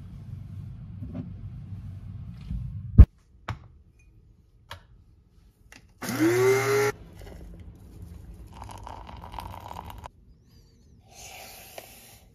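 Electric blade coffee grinder running briefly for about a second, its motor whirring up in pitch as it spins up. Before it comes a single sharp, loud click, and near the end there is a short hiss.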